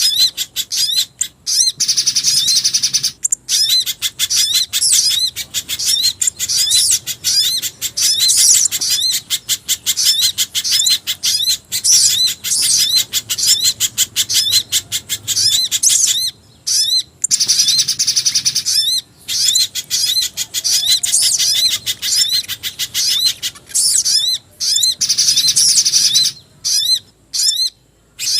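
A bird-lure recording that mixes pijantung gunung (spiderhunter) calls with sogon and jingjing batu calls. A fast run of sharp chip notes goes on under short rising-and-falling whistles and bursts of high twittering, with brief breaks where the loop is cut.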